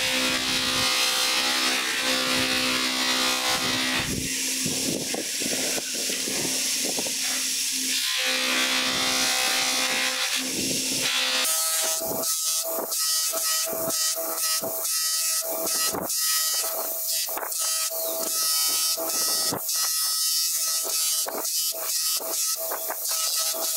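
Powered felt buffing wheel spinning with a steady motor hum and hiss as a hammer's steel head is pressed against it for final polishing. About halfway through the hum changes pitch and the rubbing comes in quick, uneven strokes, about two a second.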